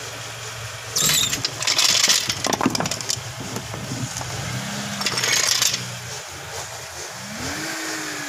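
Honda CR-V engine idling steadily, with two loud bursts of hissing noise, the first about a second in and the second around five seconds in. Near the end a tone rises briefly, then slowly falls away.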